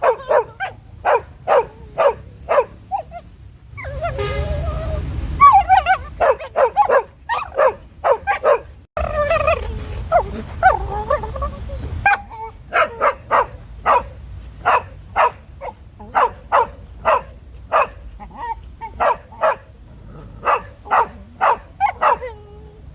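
A dog barks in a steady rhythm, about twice a second, through most of the stretch. Twice, for a few seconds each, a playing beagle breaks in with a rapid, warbling, chattering vocalisation that sounds like a tape on fast forward.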